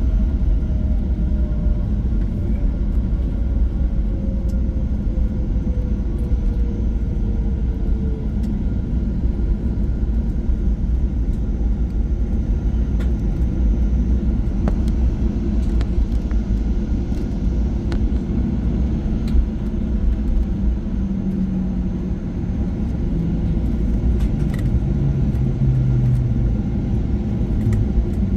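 Boeing 737-800 cabin noise heard from inside, the jet rolling and taxiing after landing: a steady low rumble of the CFM56 engines and the rolling airframe, with a whine falling slowly in pitch over the first several seconds.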